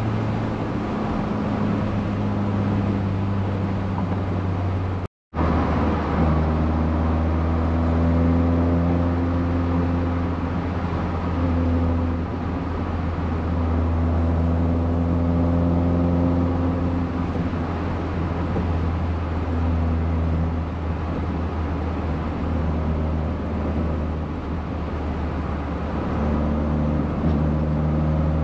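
VW Golf Mk1's 1.8 16V four-cylinder on twin Weber carburettors, with a Supersprint exhaust, running at a steady cruise: an even drone whose pitch drifts a little up and down. The sound cuts out for a moment about five seconds in.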